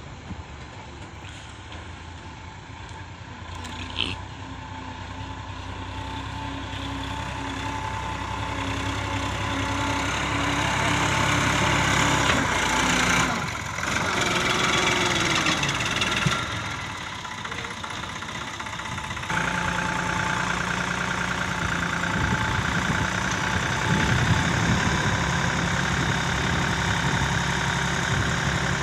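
Sonalika farm tractors' diesel engines running steadily. Close up, one tractor idles while its hydraulic tipper raises a trolley loaded with soil. The sound jumps abruptly a few times in between.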